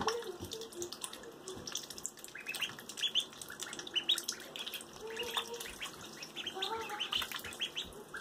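Ducklings peeping repeatedly in short chirps while they paddle and dabble in shallow bathtub water, with small splashes.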